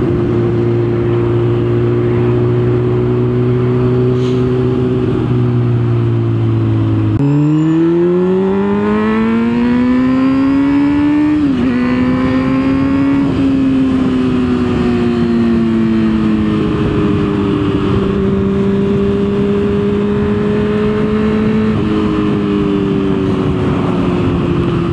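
Motorcycle engine heard from the rider's seat, running at a steady cruise. About seven seconds in, the pitch drops and then climbs steadily for about four seconds as it accelerates, dips briefly, and settles back to a steady cruise.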